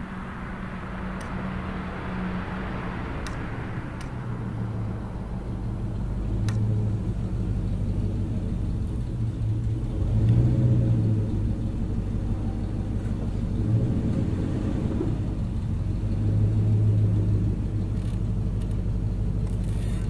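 Power wheelchair's electric drive motors humming as the chair moves about close by, a low steady hum that swells several times and grows louder toward the end. A higher rushing noise fades away over the first few seconds.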